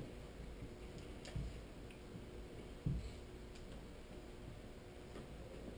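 Faint clicks and soft knocks of a whiteboard eraser and dry-erase marker against the board, with three low thuds: one at the start, one about a second and a half in and one about three seconds in.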